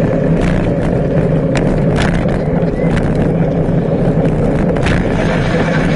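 Bicycle riding along a tarmac path: a steady rolling rumble with a few sharp clicks and rattles from bumps.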